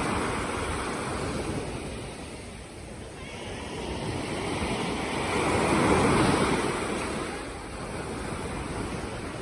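Sea waves washing ashore, one swell building to a peak about six seconds in and then easing off, with wind on the microphone.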